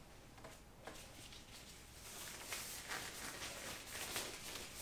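Faint rustling and a few soft clicks of disposable gloves being pulled on and handled.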